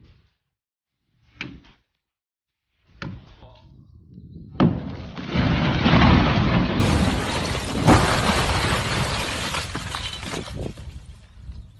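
A few separate knocks, then loud crashing and breaking that lasts several seconds.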